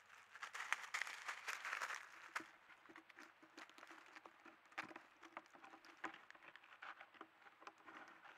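Light rustling and crackling in dry leaf litter, with many small clicks, busiest in the first two seconds, from an animal moving on the leaf-covered ground.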